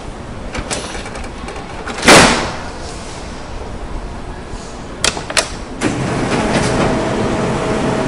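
Printer running. It clicks and knocks, gives one loud short rush about two seconds in and two sharp clicks about five seconds in, then settles into a steady mechanical run with a faint constant hum from about six seconds.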